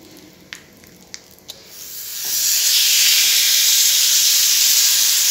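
A masala-coated tilapia shallow-frying in hot oil with curry leaves, sizzling loudly and steadily. The sizzle rises quickly about two seconds in, after a few faint pops from the oil.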